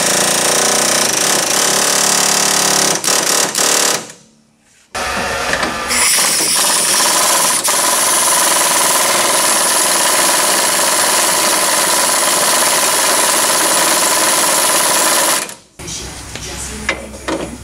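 Pneumatic air hammer chattering against a seized, rusted control-arm bushing to split its inner sleeve and shake the rust loose, with a few short stutters before it stops about four seconds in. After a brief pause an impact wrench runs steadily for about ten seconds, then stops, leaving a few light metal clanks.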